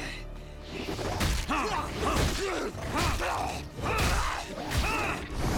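Punches landing on a body, about one blow a second, with short pained groans between the hits.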